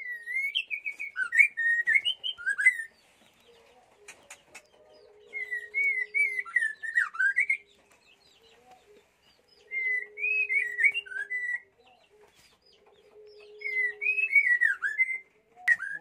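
White-rumped shama (murai batu) singing: four phrases of rich, warbling whistles, each lasting two to three seconds with short pauses between. Faint high chirps from other birds sound in the gaps.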